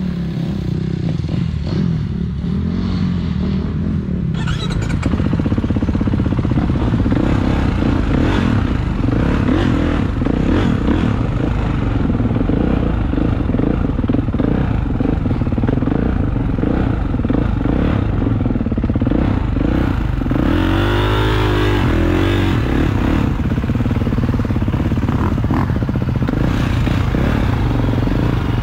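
Dirt bike engine running while the bike is ridden, heard close up from the rider's own bike, with the throttle working up and down. There is a sharp rev that rises and falls about two-thirds of the way through.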